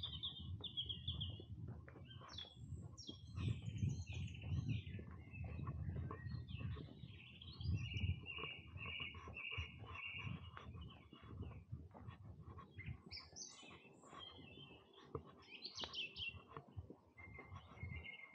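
Several songbirds singing in varied phrases, with a run of about six evenly repeated notes midway through. Beneath them runs a low rumble with frequent short thuds from footsteps on the path.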